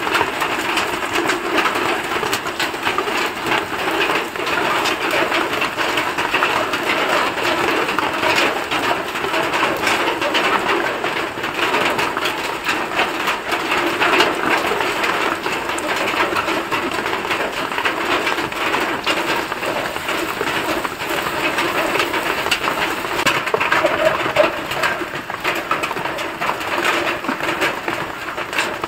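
Masala-coated sardines shallow-frying in hot oil: a steady, dense sizzle full of small crackles.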